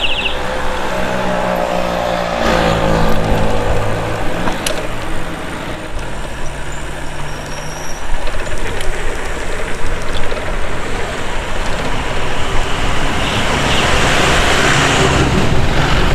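Road traffic heard from a moving bicycle. A motor vehicle's engine passes close in the first few seconds, its pitch sinking slowly, then an even road and traffic noise follows and grows louder near the end.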